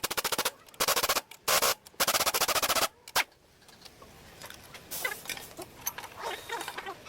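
Impact wrench hammering in several short bursts over the first three seconds, then only faint clicks.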